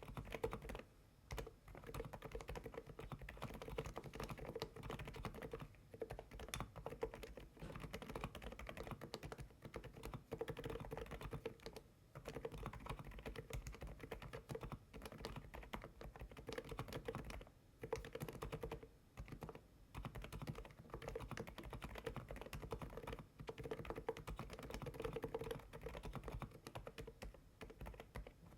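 Continuous typing on an AULA F99 Pro silent mechanical keyboard with Leobog Feather switches: soft, muted keystrokes in quick succession, with brief pauses now and then.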